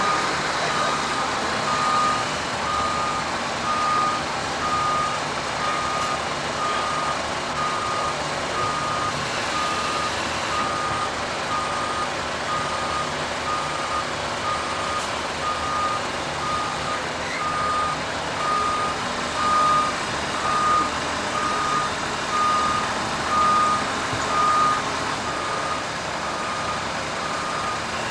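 Heavy equipment's backup alarm beeping at an even pace, over the steady noise of the machine's engine.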